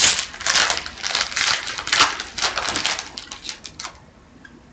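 Hockey trading cards and pack wrappers being handled: a quick, irregular run of clicks and rustles that dies away about four seconds in.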